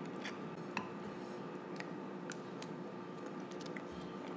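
Quiet eating sounds: faint, scattered small clicks and ticks from pink plastic trainer chopsticks picking at food in a bowl, over a steady low room hum.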